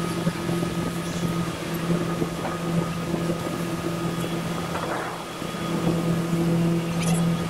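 A motor running at a steady speed, giving a constant hum.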